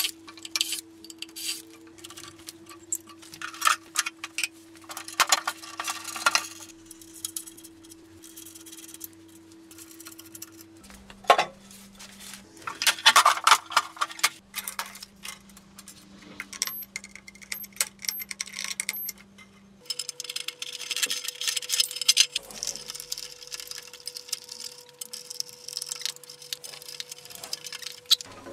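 Clinks, knocks and clatter of hand tools and metal parts being handled during shop work on an old hydraulic press. A faint steady hum sits underneath, its pitch shifting several times.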